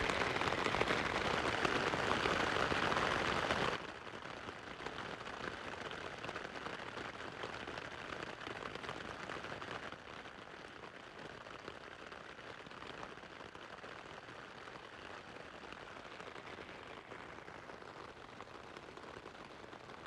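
Rain falling on a dome tent, heard from inside: a dense, steady patter that cuts off about four seconds in. A much softer, steady hiss follows.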